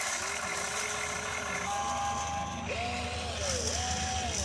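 Electric motors of an RC excavator whining as the boom and arm move: a low whine, then a higher steady one for about a second, then two whines that rise and fall in pitch near the end.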